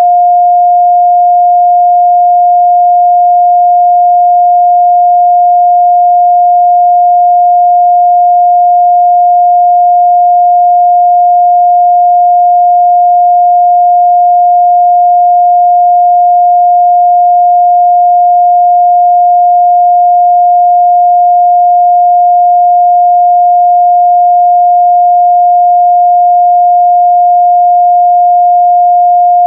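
A steady 708 Hz pure sine-wave test tone, held at one pitch and constant loudness with no other sound.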